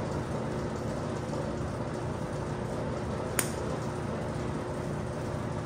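Steady background hum of the shop with one sharp click a little past halfway, from a hand tool on the engine.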